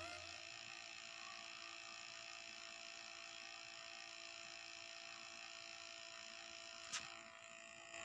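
Faint steady electrical hum made of several fixed tones, with a single short click about seven seconds in.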